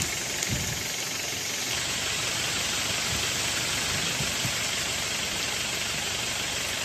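Heavy rain falling steadily: a dense, even hiss, with a few low gusty thumps in the first second.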